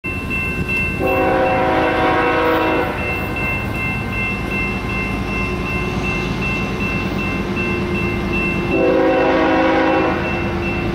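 Approaching freight locomotive's multi-chime air horn sounding two blasts, the first about two seconds long and the second shorter near the end, over the steady low rumble of the oncoming train. A grade-crossing bell rings in quick, even strokes.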